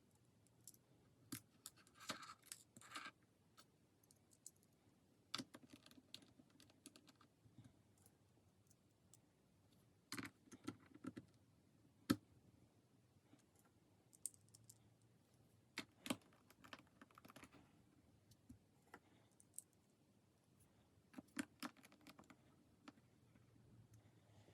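Scattered light clicks and taps, some in quick runs, with brief scraping and rustling, from hands handling and working on a Dell XPS 15 laptop; the sharpest click comes about halfway through.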